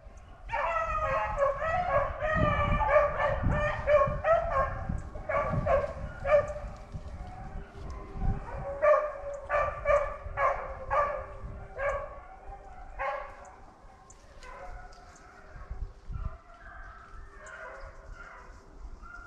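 A pack of rabbit-hunting hounds baying in many overlapping calls as they run a rabbit's trail. The cry is loud and dense at first and grows fainter and more scattered over the last few seconds.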